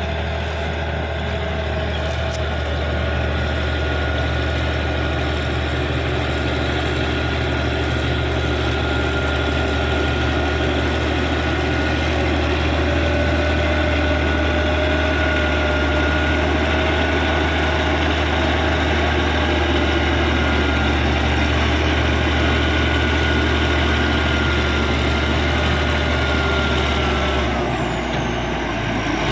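Caterpillar D6G bulldozer's diesel engine running steadily, with a whining tone over a deep drone. About a second and a half before the end, the pitch drops as the engine eases off.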